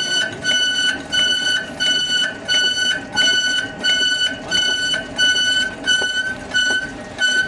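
Electronic beeper sounding a high-pitched beep over and over, a little over twice a second, over a low background rumble.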